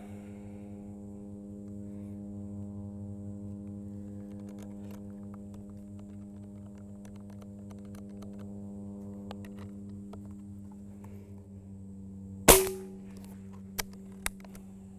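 Benjamin Maximus .177 pre-charged pneumatic air rifle firing one shot, a sharp crack with a short ring, about twelve and a half seconds in, followed by two light clicks. Faint handling clicks come before the shot, over a steady low hum.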